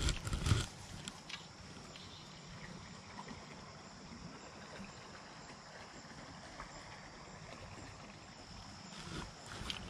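Steady, faint background of a flowing creek, with a faint high insect-like hum over it. A brief low thump and rustle right at the start, and a few lighter rustles near the end.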